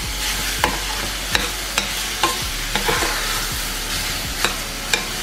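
Soaked moong dal and chopped vegetables sizzling in a little oil in a stainless steel pan while a metal spoon stirs them, with repeated scraping clicks of the spoon against the pan.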